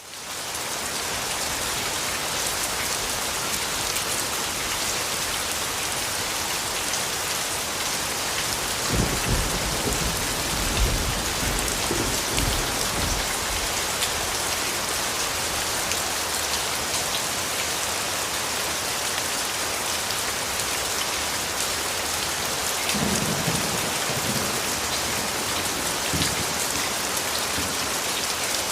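Steady rain falling hard, a dense even hiss of drops on a surface. Low rolls of thunder come twice: about nine to thirteen seconds in, and again about twenty-three to twenty-six seconds in.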